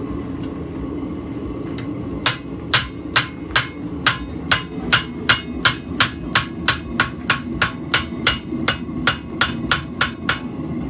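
Hand hammer striking a red-hot steel leaf on an anvil, putting in its veins: a regular run of sharp metal-on-metal blows, about two and a half a second, starting about two seconds in. A steady low rumble runs underneath.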